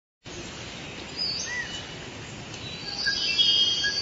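Bird chirps and whistles over a steady hiss, like a forest ambience. It starts abruptly, and the calls grow busier and louder about three seconds in.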